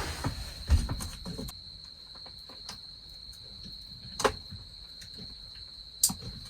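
Autumn crickets trilling steadily in one high continuous tone, with a low thump about a second in and a couple of sharp knocks later.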